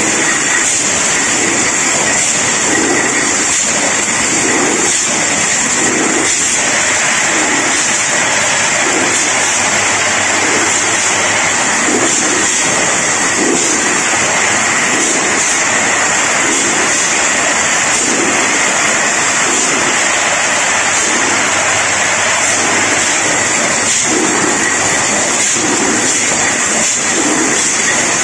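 Automatic mini gas canister filling and capping line running: a steady, loud hiss of compressed air and machine noise, with a low pulse repeating about every one and a half seconds as the heads cycle and cans move along the conveyor.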